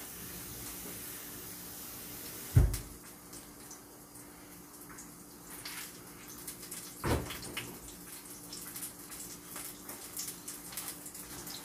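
Water running from a tap in a sink, cut off about two and a half seconds in with a loud thump. After that come scattered clinks and knocks, with a second thump about seven seconds in.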